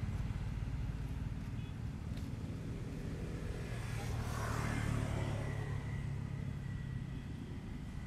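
A motor vehicle passes by over a steady low rumble. It grows louder about four seconds in and fades away by about six seconds.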